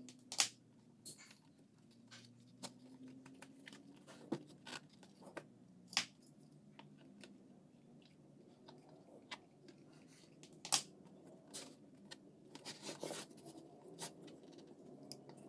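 Hands handling a plastic basket and pressing a braided water-hyacinth rope against it: faint scattered clicks and crackles, with a few sharper clicks.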